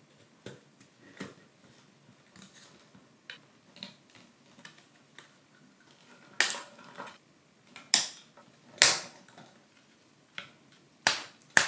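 Laser-cut plywood pieces of a wooden mechanical-gear locomotive kit being handled and fitted together: scattered light clicks and taps, with a few sharper wooden knocks in the second half.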